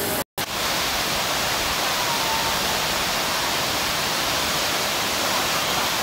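Waterfall pouring over a rock face: a steady, even rush of falling water, cut by a very short drop-out about a third of a second in.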